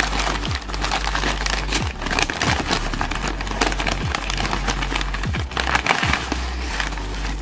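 Newspaper wrapping crinkling and crumpling continuously as it is pulled apart by hand, over background music with a low bass beat.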